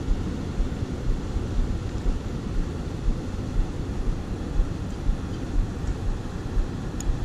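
Wind buffeting the camera microphone: a low rumble that swells and dips in irregular gusts.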